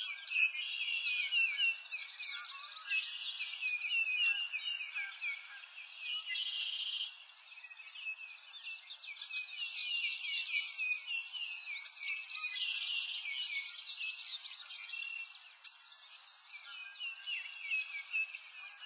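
Dense chorus of many small birds chirping and trilling, a steady overlapping mass of quick high chirps with no pause.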